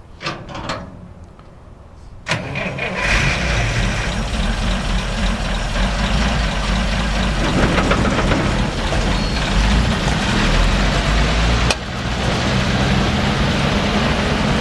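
An engine, most likely the restored Sd.Kfz. 11 half-track's, starts about two seconds in and then runs steadily. A sharp click comes about three seconds before the end.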